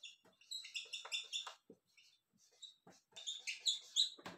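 Felt-tip marker squeaking on a whiteboard as words are written: short high squeaks with small taps between them, in two bursts, one about a second in and one near the end.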